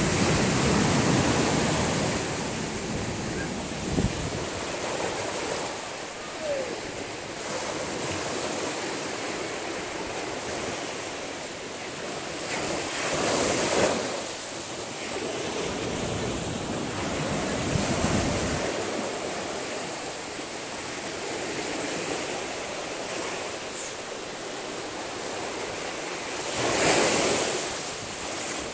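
Small ocean waves breaking and washing up a sandy beach: a steady hiss of surf that swells louder each time a wave rolls in, several times over.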